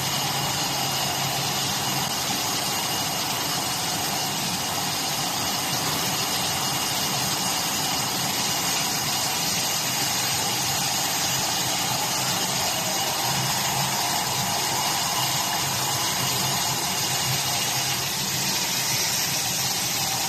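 Automatic glass bottle washing and drying-oven machine running: a steady low hum under an even hiss.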